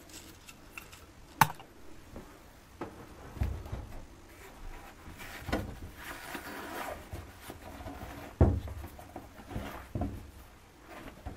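Old boots being picked up and handled on wooden floorboards: scattered knocks and dull thumps against the boards, with rustling of fabric in the middle. Two sharp knocks stand out as the loudest, one near the start and one about three quarters of the way through.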